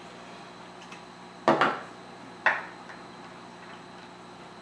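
Two sharp clacks about a second apart: a small plastic Hanna Checker handheld colorimeter being handled and set down on a wooden table.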